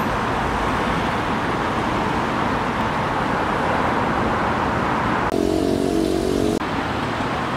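Steady hiss and rumble of road traffic passing. A little past five seconds it is cut off for about a second by a short stretch of held musical notes, then returns.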